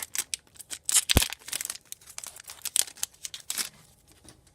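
Trading card pack wrappers being torn open and crinkled, in quick irregular crackles, with a single thump about a second in; the crinkling dies down near the end.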